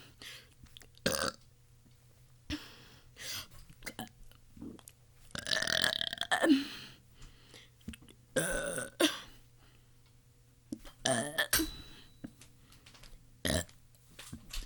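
A person burping again and again, burps of varying length with pauses between them; the longest and loudest, more than a second long, comes a little before halfway.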